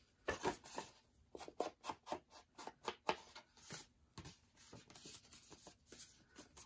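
Foam ink blending tool with a freshly changed sponge dabbing on an ink pad and against the edges of a paper page: soft, irregular taps several times a second, with light paper rustling.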